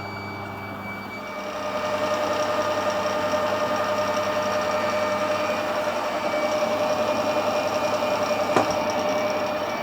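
Metal lathe taking a turning cut on a bar, bringing it down to a 30 mm diameter: a steady motor hum, with the cutting noise and a steady whine coming in about a second in and easing off near the end. One sharp click shortly before the end.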